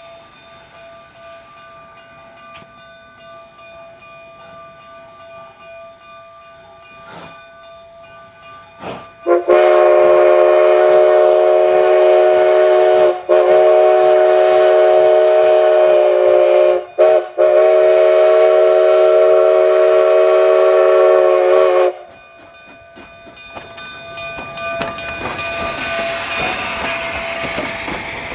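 Cumbres & Toltec narrow-gauge steam locomotive's whistle, a chord of several notes, blowing the grade-crossing signal: long, long, short, long. After the whistle stops, a growing rush of noise follows as the locomotive and its coaches roll past close by.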